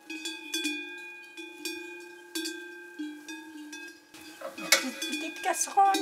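Cowbells clanking irregularly as cows move, about two strikes a second, each ringing on with the same set of tones. Near the end some clatter and rustling join in.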